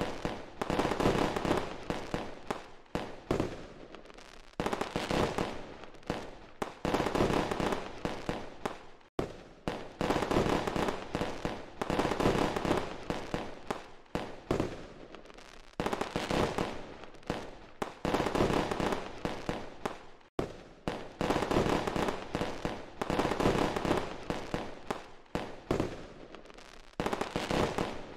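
Fireworks sound effect: shell bursts going off in quick succession, sharp bangs followed by crackling tails, coming in waves every second or two. The sound cuts out for an instant twice.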